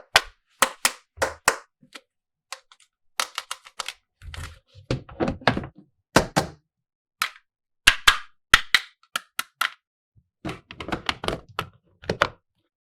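Small plastic toy pieces being handled and set down: a string of sharp clicks, taps and light thunks with short silent gaps, and a few stretches of denser handling noise in the middle and near the end.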